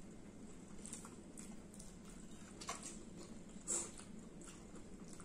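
Quiet eating sounds: chewing and mouth noises at a meal, with a few small clicks, the loudest a little under four seconds in.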